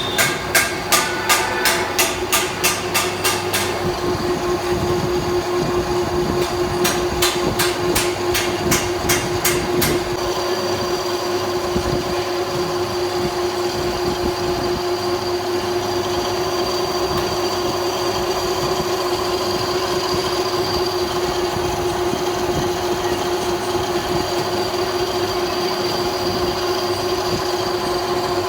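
Metal lathe running with a steady hum. Rhythmic ticking at about four a second sounds over the first few seconds and again from about 7 to 10 s in.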